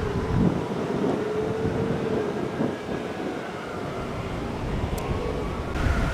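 Street traffic passing, with a steady engine whine that wavers slightly in pitch and a higher tone rising near the end, and wind on the microphone.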